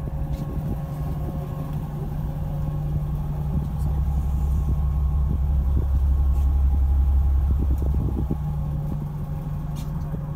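Fishing boat's engine running steadily, a low drone with a faint hum above it that swells a little midway and settles again. Small clicks and knocks of gear on the deck come and go.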